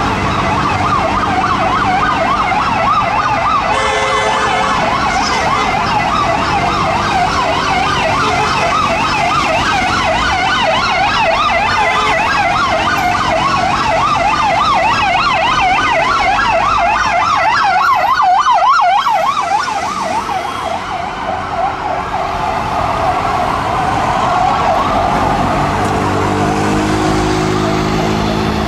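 Ambulance siren sounding a fast up-and-down yelp, loudest about two-thirds of the way through, over the hum of city traffic.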